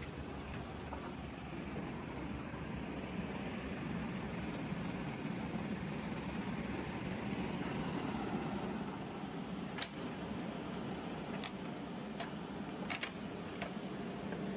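Automatic side-sealer shrink-wrapping machine (Smipack HS800 Servo) running with a steady mechanical noise, then a series of sharp clicks in the last few seconds.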